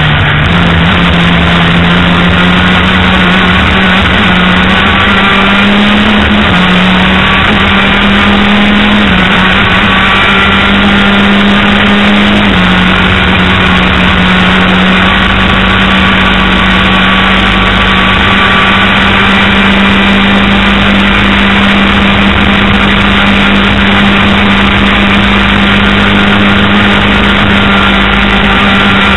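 Race car engine heard on board at speed, running hard at near-steady high revs, its pitch stepping up and down slightly a few times in the first half and then holding steady. Loud and continuous.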